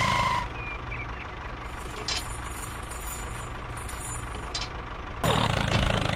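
A steady low engine rumble, with a short beep right at the start and a louder burst of sound near the end.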